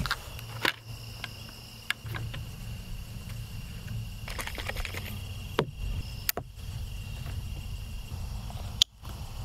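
Crickets trilling steadily outdoors, with a few sharp clicks and knocks of things being handled close by, the loudest just before the end.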